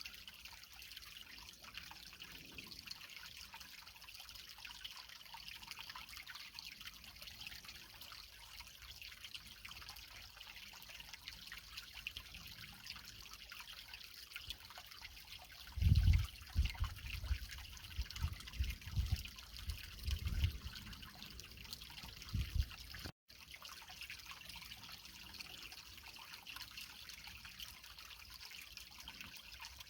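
Shallow creek water trickling and splashing over rocks, a steady light hiss. About halfway through, several seconds of low rumbling thumps come in, louder than the water, and the sound cuts out for an instant shortly after.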